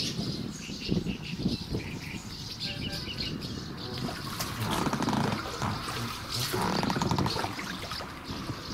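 Swallows twittering in quick high chirps from their mud nests under a concrete bridge, over water sloshing around a small boat. Louder, rough low sounds come about halfway through and again a little later.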